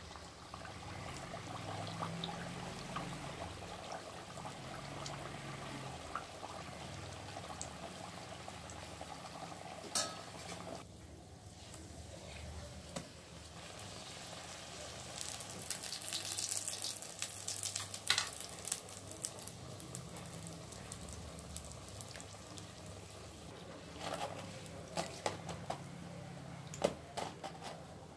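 A potato-stuffed kachori deep-frying in hot oil in an iron karahi: a steady sizzle and bubbling that grows louder for a few seconds in the middle as the kachori is pressed and turned. A few sharp clicks of the metal skimmer against the pan come near the end as it is lifted out.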